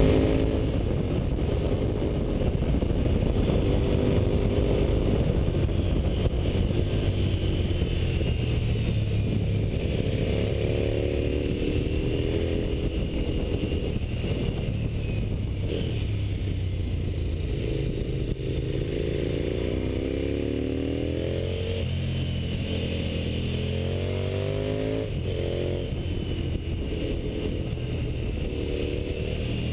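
Motorcycle engine heard from on board while riding, its pitch climbing again and again and dropping back between climbs as it accelerates through the gears, over a steady rumble of wind and road noise.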